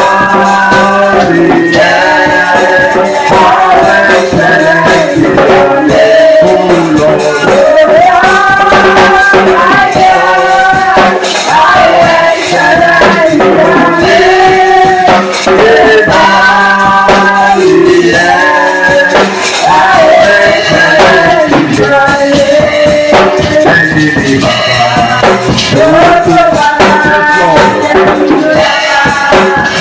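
Church worship singing with instrumental accompaniment, a hand-percussion rattle shaking steadily in time.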